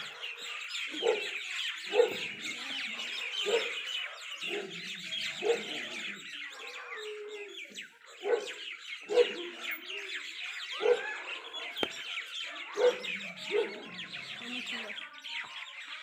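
A flock of small birds chirping densely and without a break. Short, lower sounds recur about once a second underneath.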